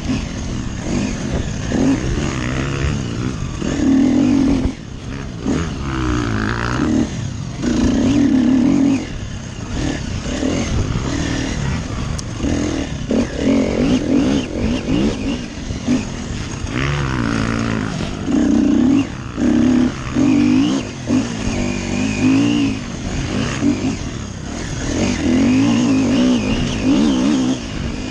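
Off-road dirt bike engine heard on board, revving hard and backing off again and again as the throttle is opened and shut along a tight race trail. The loud bursts of revving come every second or two.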